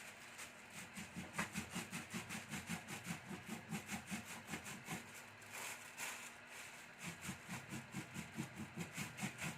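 Mulukhiyah (jute mallow) leaves being chopped with a rocking makhrata blade through a plastic bag on a towel: quick, even strokes about three or four a second, easing off for a moment midway.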